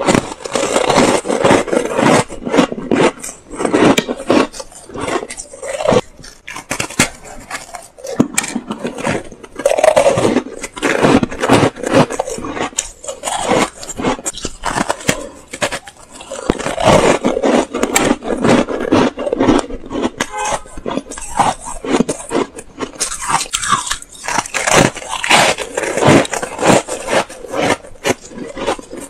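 Chewing and crunching a block of pink shaved ice close to a clip-on microphone: dense, crisp crackling crunches bite after bite, with a few short pauses.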